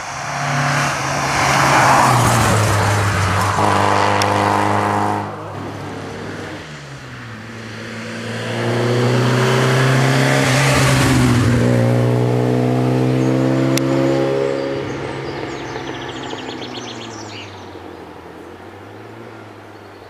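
Historic rally cars passing one after the other at full throttle, engines revving hard. The first, an Alfa Romeo coupé, cuts off abruptly about five seconds in. The second swells a few seconds later, climbs in pitch as it revs out, then fades as it pulls away.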